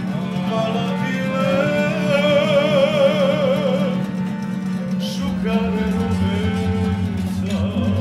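Live acoustic band of accordion, guitars and upright double bass playing, with a man singing in two phrases of held notes with a strong vibrato.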